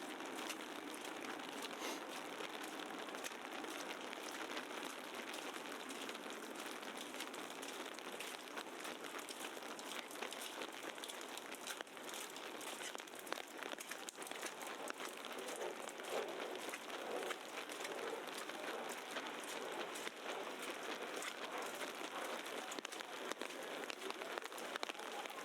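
Falling wet snow and slush in a snowstorm: a steady, dense crackling patter made of many tiny irregular ticks.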